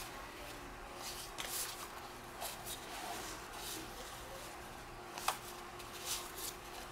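Faint handling of 2013 Topps Heritage baseball cards: soft slides and rustles of card stock as cards are flipped through one by one, with a sharper click a little after five seconds in.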